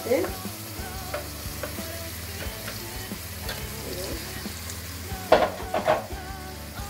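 Chopped chicken thigh meat sizzling in a frying pan of onions and oil while a plastic slotted spatula stirs and scrapes it through, with small clicks throughout. A few louder knocks of the spatula against the pan come about five seconds in.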